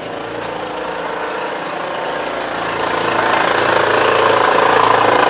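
Honda Pilot's 3.5-litre VTEC V6 idling with the abnormal engine noise the customer reported. It grows louder over the first three seconds or so, then holds steady.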